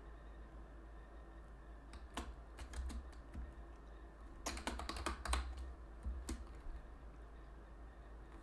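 Typing on a computer keyboard: a few separate keystrokes, then a quick run of several keys a little past the middle, over a steady low hum.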